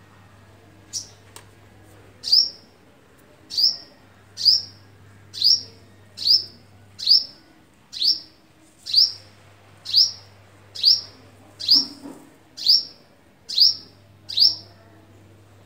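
A small bird chirping over and over: a sharp, high call that falls quickly in pitch, repeated evenly about once a second from about two seconds in.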